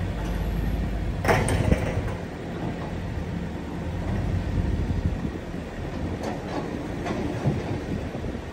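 Steady low rumble of a car moving slowly along a road, with a short knock or rattle a little over a second in and a few faint clicks later.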